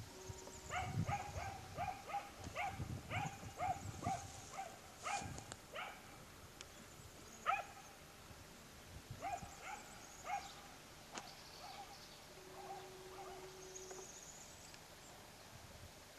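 A dog barking repeatedly: a quick run of about a dozen barks, then scattered single barks with pauses between.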